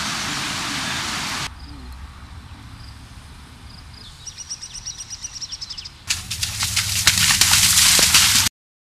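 Rushing creek water for about a second and a half, then a quieter stretch in which a bird sings a fast run of high notes, then loud rustling and crackling that cuts off abruptly near the end.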